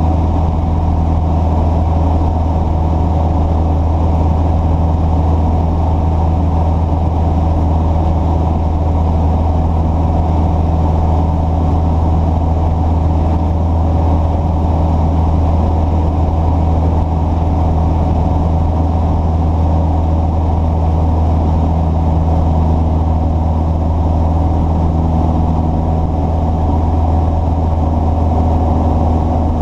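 An engine running steadily at an unchanging speed: a constant low hum with no revving.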